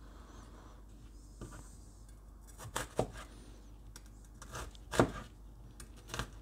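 Kitchen knife chopping onion on a plastic cutting board: a few irregular knocks of the blade on the board, the loudest about three seconds in and again about five seconds in.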